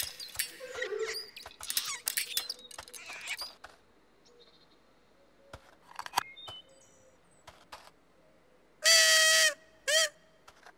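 Makka Pakka's small toy trumpet blown twice near the end, first one held note of about three quarters of a second and then a short toot. Before it come a few seconds of light squeaks and clicks.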